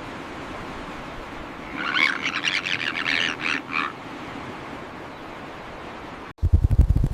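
A bird chirping in a quick run of notes for about two seconds over a steady outdoor hiss. Near the end the sound cuts abruptly to a loud, low, rapidly fluttering rumble.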